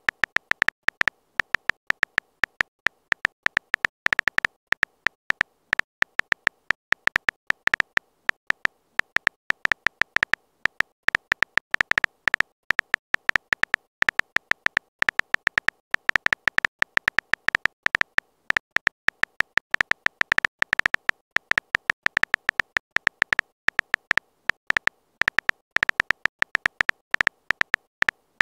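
Phone keyboard typing clicks, one short click per letter in a quick, uneven stream of several a second, as a long text message is typed out.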